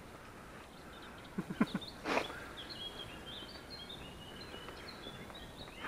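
A small songbird singing in a run of quick high chirps over steady outdoor noise. Just before the song begins, a brief cluster of short, sharp sounds stands out as the loudest part.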